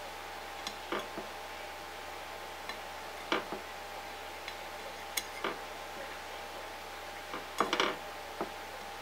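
Scattered light clicks and taps of a thin plastic tool against a plastic tray as it presses and shapes soft candy-dough fries, with a quick run of clicks near the end. A faint steady hum lies underneath.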